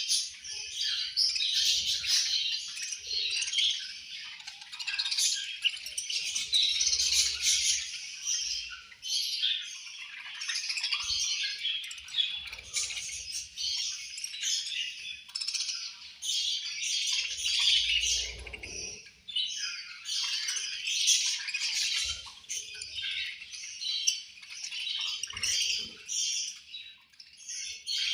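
A flock of budgerigars chirping and chattering without a break, many high calls overlapping.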